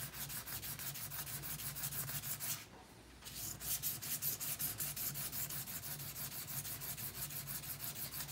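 Steel paring knife blade scrubbed rapidly back and forth on a coarse 140-grit diamond sharpening stone, a fast, even rasping stroke after stroke, with a brief pause about two and a half seconds in. This is coarse grinding to thin the blade's bevel.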